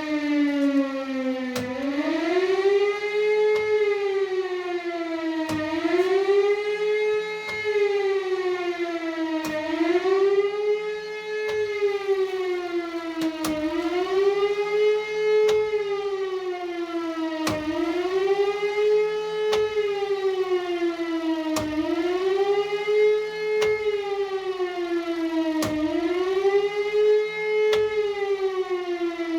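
E57 electromechanical civil-defence siren wailing, its pitch rising and falling about every four seconds with a click at each low point. This is the undulating 'Warnung' signal, the motor's contactor switching it on and off, given as a full-load test of a newly fitted contactor that replaced a 60-year-old one that had stuck.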